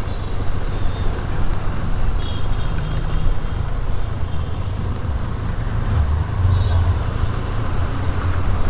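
Benelli TRK 502 motorcycle on the move: its 500 cc parallel-twin engine and tyres run steadily under a constant rush of wind noise on the microphone.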